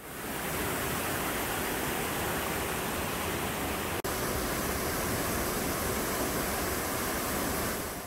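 Close-up rush of a wide artificial waterfall pouring down a rock wall and splashing into the basin below: a steady roar of falling water, with a brief dropout about halfway through.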